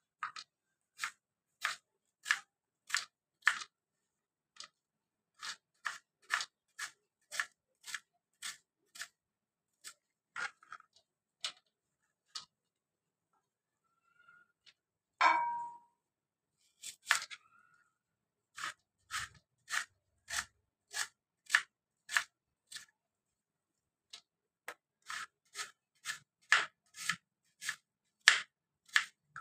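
Knife slicing a red onion on a plastic cutting board: short knocks of the blade reaching the board, roughly two a second, with a pause about halfway. Just after the pause comes one louder clink with a brief ring.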